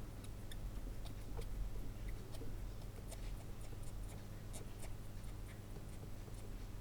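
Faint light scratching and scattered small clicks of a toy's slide-switch parts being handled and its contacts wiped, over a low steady hum.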